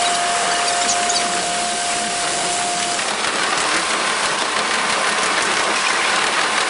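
KiHa 47 diesel railcar running along the line, its engine and wheel-on-rail noise sped up five times into a dense hiss and buzz. A steady tone stops about three seconds in and a fainter, higher one takes over.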